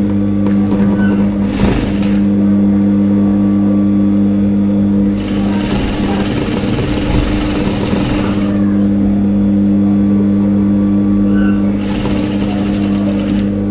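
Industrial lockstitch sewing machine: its motor hums steadily while it stitches in runs, about two seconds in, from about five to eight and a half seconds, and again near the end.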